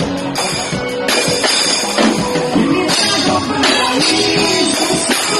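Live band music amplified through a stage sound system: drums and guitar under a male and a female voice singing together, the voices coming in strongly in the second half.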